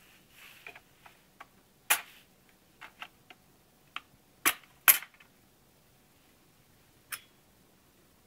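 Irregular sharp clicks and taps of a laptop's hard plastic and metal parts being handled, about a dozen in all. The loudest come about two, four and a half, five and seven seconds in.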